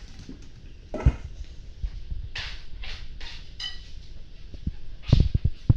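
Stainless steel colander and bowl clinking and knocking as fried dough balls are tipped from the colander into a bowl of syrup. A knock comes about a second in, then several short ringing metal clinks, and a few dull thumps near the end.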